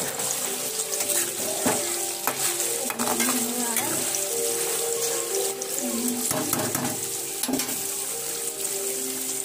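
Paneer cubes deep-frying in hot oil in a kadhai: a steady sizzle, with a spatula stirring them and knocking against the pan several times.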